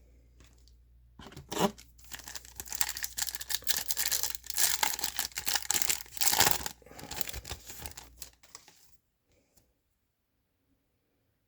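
Plastic trading-card pack wrapper being torn open and crinkled, beginning about a second in with a sharp rip and going on in a dense rustle for about seven seconds before stopping.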